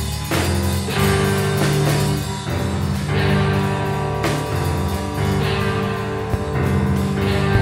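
A live rock band plays a song: electric guitar chords change about once a second over a steady drum beat.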